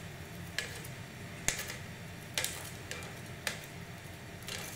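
Metal tongs clicking against a sheet pan and stockpot as roasted fish bones are moved into the pot: about five sharp clicks roughly a second apart, over a steady low hum.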